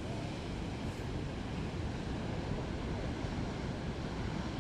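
Strong wind buffeting the microphone over a rough sea: a steady deep rumble with hiss above it.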